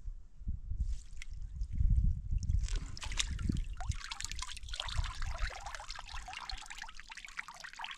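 Water trickling and pouring off a crab trap as it is lifted out of the water, starting about two and a half seconds in, with low handling knocks before it.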